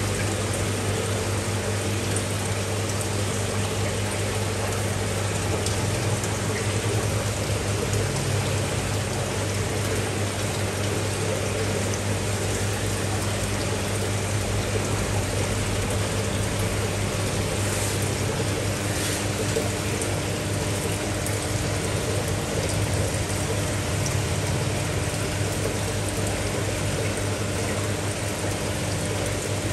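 Aquarium water running steadily: an even splashing and trickling of water with a constant low pump hum beneath it.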